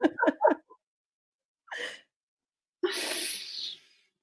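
Women's laughter trailing off in a few short bursts, then a single breathy burst about three seconds in.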